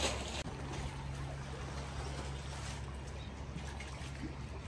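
Waterside ambience: a soft, even wash of water and wind noise, with a steady low hum underneath.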